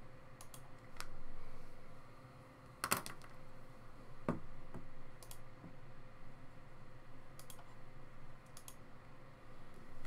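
Scattered clicks and taps, like typing on a computer keyboard and clicking a mouse, a few at a time with pauses between and a small cluster about three seconds in, over a faint steady hum.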